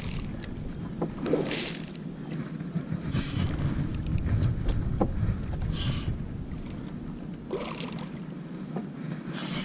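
Spinning reel being cranked to bring in a hooked redfish, its gears whirring and clicking, over a steady rush of water and wind. A few brief louder splashy bursts come through as the fish swirls at the surface.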